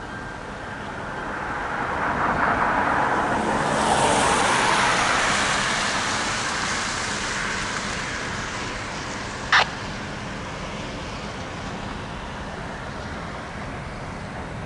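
A road vehicle passing by: tyre and engine noise swelling to a peak about four seconds in, then fading away. One short sharp click about ten seconds in.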